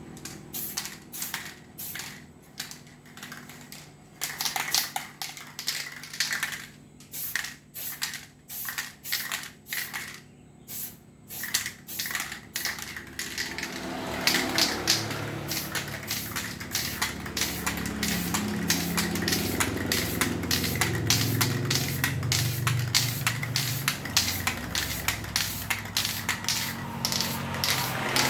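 Aerosol spray-paint can hissing in short, quick bursts, about two to three a second, laying on thin coats. From about halfway the bursts come closer together over a low rumble.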